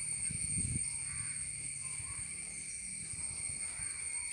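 Rural outdoor ambience: a steady high-pitched insect drone with faint crow caws now and then, and a short low rumble of wind on the microphone about half a second in.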